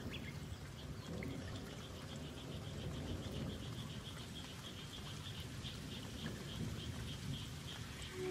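Steady rain falling, an ambience recording of rain in a forest, with a quick, even, high chirping running through it from about a second in until near the end.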